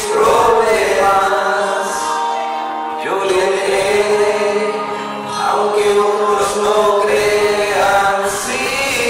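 Two men singing a Spanish-language worship song into handheld microphones, in long held notes that change pitch between phrases, over a steady sustained low tone.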